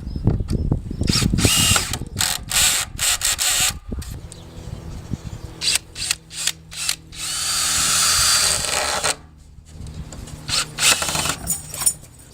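Cordless drill-driver running in many short bursts, then one longer run of about two seconds in the second half, driving drywall screws. A faint steady hum sits underneath from about four seconds in.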